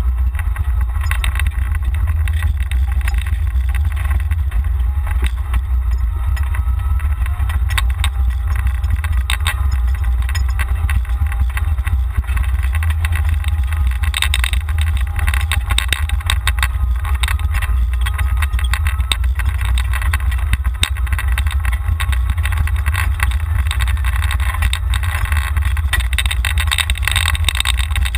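Golf cart driving along, heard from a camera mounted on it: wind buffets the microphone in a steady low rumble, over the cart's faint running whine and scattered rattles and knocks.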